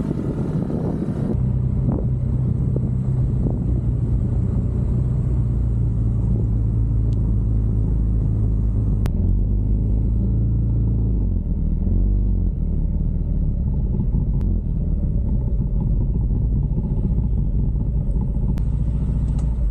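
Motorcycle engine running steadily under the low rumble of wind on the microphone as the bike rides along; the engine note shifts a little around eleven to thirteen seconds in.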